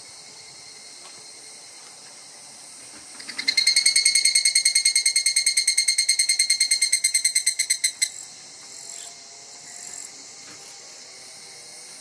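Evening cicada (higurashi) calling: a loud, rapid 'kana-kana' trill of about ten pulses a second that swells in a few seconds in and stops abruptly about five seconds later. A steady hiss of more distant cicadas runs underneath, with a few faint calls after the trill ends.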